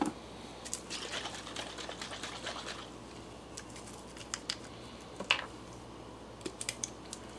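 Faint handling sounds: a light rustle, then scattered small clicks from about halfway through as the cap of a glass Worcestershire sauce bottle is worked open.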